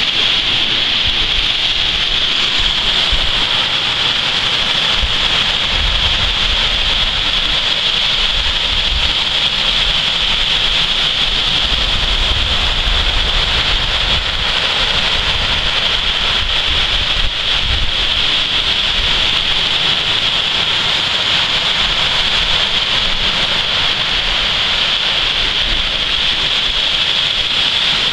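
Steady outdoor night ambience: a constant high hiss, with wind buffeting the microphone in low gusts now and then.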